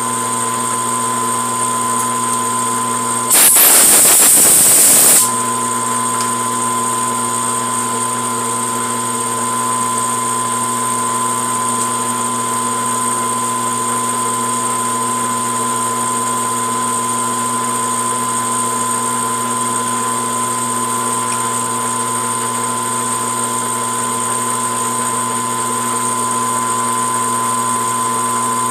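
Metal lathe running steadily, its motor and gearing giving a constant whine. A few seconds in, a loud hissing noise covers it for about two seconds, then stops suddenly.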